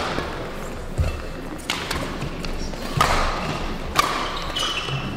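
Badminton rally: four sharp racket hits on the shuttlecock about a second apart, with shoes squeaking on the court floor between them, echoing in a large hall.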